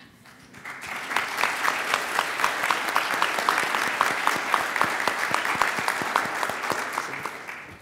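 Audience applauding: many hands clapping, swelling about a second in, holding steady, then fading out near the end.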